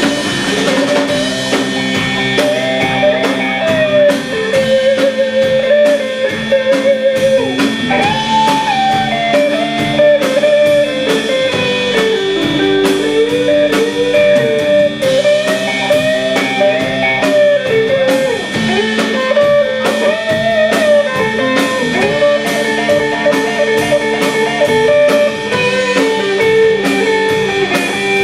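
Live band playing an instrumental break in a rock-blues style: a lead guitar melody over drum kit, bass and rhythm guitar. A steady high-pitched fire alarm tone sounds throughout, under the music.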